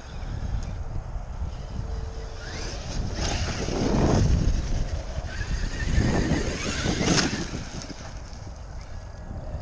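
Traxxas X-Maxx brushless electric RC monster truck driving close by twice over loose dirt and gravel, its motor whining as it passes. Steady wind noise on the microphone underneath.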